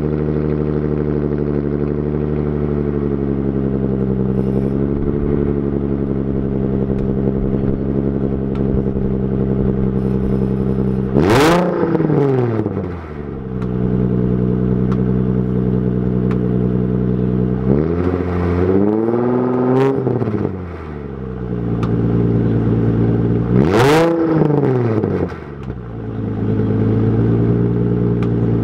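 Nissan 350Z's VQ35 V6 idling through Megan Racing test pipes, fitted in place of the catalytic converters, and a Tomei exhaust. It is revved three times: a quick blip about eleven seconds in, a longer rev held for a couple of seconds around eighteen seconds in, and another quick blip around twenty-four seconds in. It drops back to a steady idle after each.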